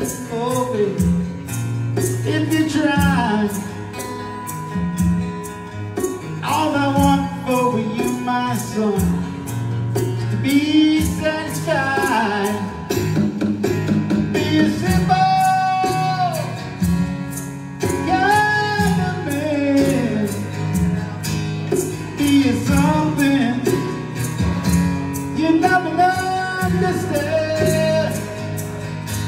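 Live acoustic duo: a steadily strummed acoustic guitar with a singing voice over it.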